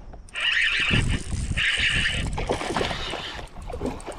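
Fishing reel whirring in short spurts, about three in a row, as a hooked bass is fought toward the boat, with low knocking and water noise around it.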